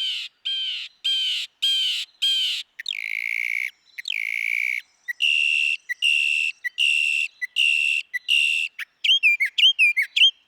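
Northern mockingbird singing, repeating each phrase several times before switching: a run of about six falling notes, two longer notes, another run of about six repeated notes, then quick short notes near the end.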